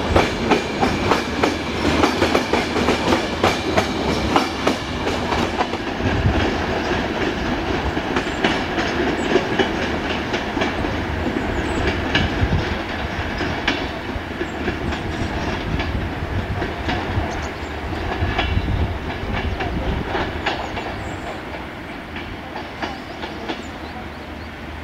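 Passenger coaches rolling over the tracks, their wheels clattering over rail joints and switches in a quick run of clicks, then growing fainter with sparser clicks as the train draws away.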